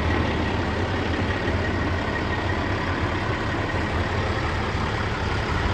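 Caterpillar 3406 inline-six diesel in a Freightliner Coronado glider idling steadily, a low even rumble with no change in speed.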